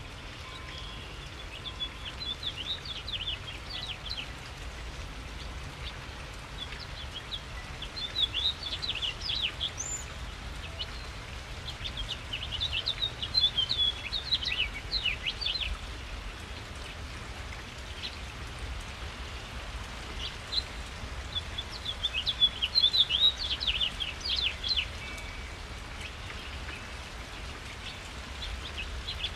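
Steady rain falling, with a songbird singing four or five twittering phrases of quick chirps, each a few seconds long, separated by pauses of a few seconds.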